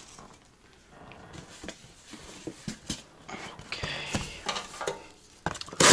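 A cardboard shipping box being handled and moved about on a glass-topped table: scattered light taps and knocks, a rough scrape of cardboard about four seconds in, and a loud sharp knock near the end.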